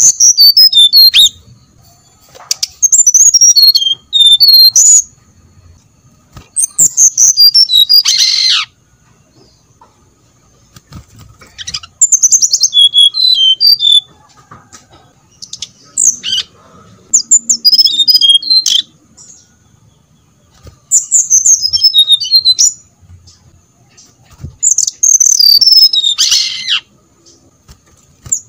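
Brown-chested jungle flycatcher (sikatan rimba dada coklat) singing. It repeats short phrases of high, clear whistled notes that skip and fall in pitch, with pauses of about two seconds between them. A couple of the phrases end in a harsh, falling buzz.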